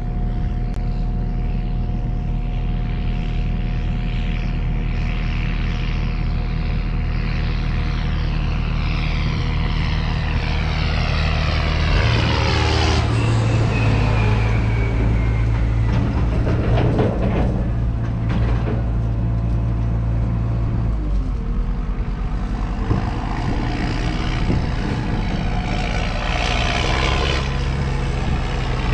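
Mini excavator's diesel engine running steadily. Its engine note steps up about twelve seconds in and settles back down near twenty-one seconds, with a stretch of clattering noise in between as the machine works.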